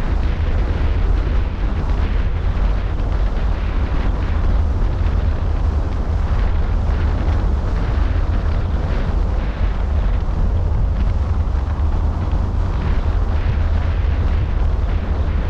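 Wind buffeting the microphone of a camera mounted on the roof of a moving car, a loud steady low rumble with road noise underneath.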